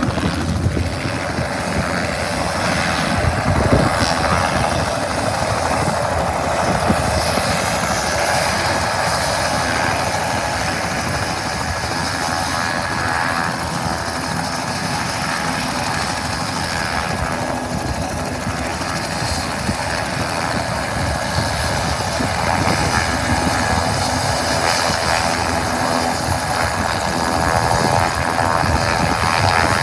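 A small helicopter idling on the ground after landing, its engine running and main rotor still turning, with a steady even sound throughout.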